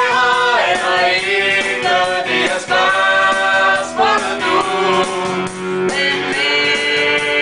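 Song with several voices singing together over instrumental backing, the sung words not made out.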